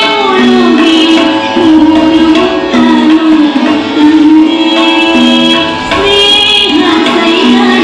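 A woman singing a song with tabla accompaniment, holding long notes that slide from one to the next.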